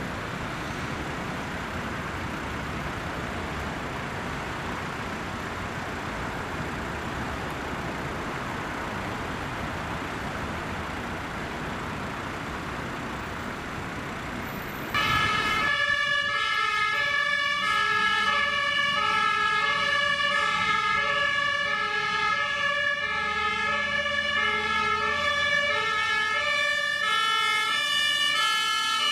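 Steady road traffic noise. About halfway through, a fire engine's two-tone siren starts abruptly, loud and close, alternating evenly between a high and a low pitch.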